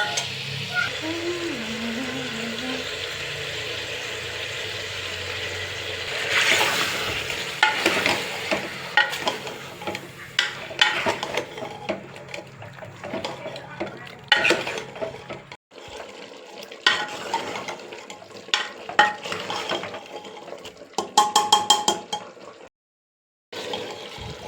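Chicken frying in a pan with a steady sizzle, then a run of clinks, knocks and scrapes as it is stirred with a utensil, with a sudden break and a short gap near the end.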